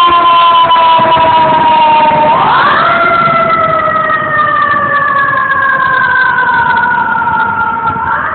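FDNY ladder truck's siren wailing: its pitch falls slowly, sweeps quickly back up about two and a half seconds in, falls slowly again, and starts rising once more near the end. It grows a little fainter as the truck pulls away.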